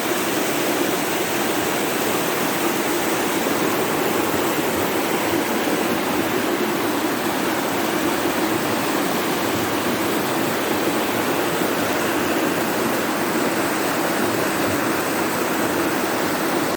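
Steady, loud rush of water from heavy rain and flooded street runoff, cutting off suddenly at the end.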